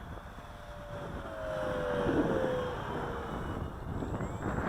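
Wind buffeting the microphone, with the faint whine of a Max Thrust Riot's electric motor and propeller overhead, its pitch falling slowly over a couple of seconds.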